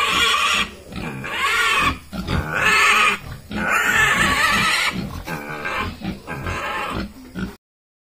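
Piglet squealing while held down for castration: four long, loud, high-pitched screams in the first five seconds, then weaker squeals that cut off abruptly near the end.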